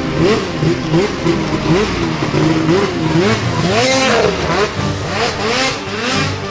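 Polaris race snowmobile's engine revving up and down repeatedly, about two revs a second, as the sled is ridden hard through snow, with one higher rev about four seconds in.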